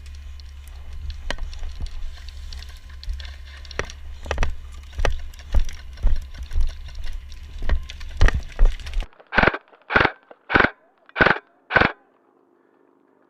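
Airsoft gunfire: a string of sharp pops over a low wind and handling rumble, then, near the end, five loud single shots evenly spaced about half a second apart.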